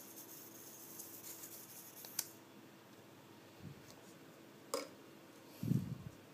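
Quiet handling of a micro electric RC helicopter as its small battery pack is unplugged. Two sharp clicks of the plastic connector and parts come about two and about four and a half seconds in, then a soft, louder thump near the end as the battery is set down on the table.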